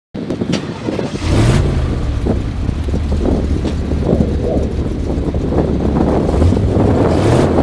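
Diesel engine of a Kato rough-terrain crane running under load as the crane drives, its engine note rising briefly about a second in and again near the end.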